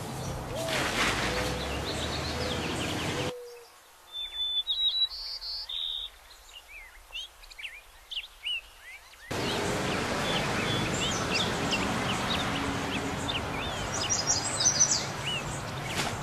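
Small birds chirping and calling in short, quick notes over a steady outdoor background hiss. For several seconds in the middle the background cuts out abruptly, leaving only the bird calls, then comes back just as suddenly.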